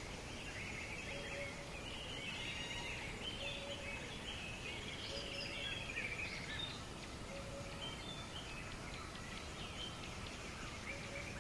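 Riverside dawn ambience: a steady background hiss of the river, with several birds chirping and trilling. A short, low call repeats every couple of seconds.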